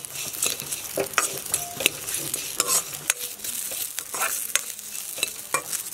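Onion, curry leaves and whole spices sizzling in a metal kadai while a metal spoon stirs them, scraping and clicking against the pan many times over a steady hiss of frying.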